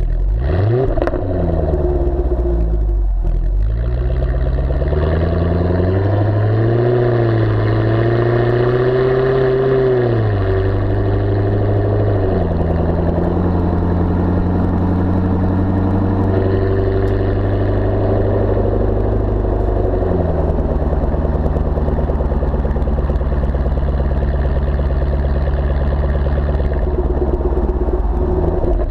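Exhaust of a Jaguar F-Type V8S's supercharged V8, recorded right at the twin tailpipes with the exhaust baffles open. The engine revs up and falls back, then pulls away with its pitch climbing. The pitch drops in steps as the gearbox shifts up, about ten, twelve and twenty seconds in, between stretches of steady cruising.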